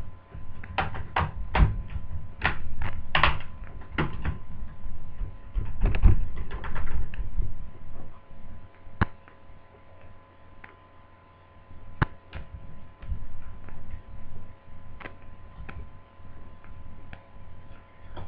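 Plastic screen bezel of a Dell Inspiron 1545 laptop being pressed into place, giving sharp clicks and knocks: a quick run in the first few seconds, a heavier cluster with dull thumps about six seconds in, then scattered single clicks.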